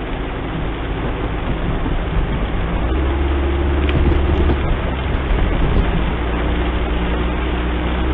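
Car driving in heavy rain, heard from inside the cabin: a steady hum from the engine and the wet road, with the low engine note growing stronger about three seconds in.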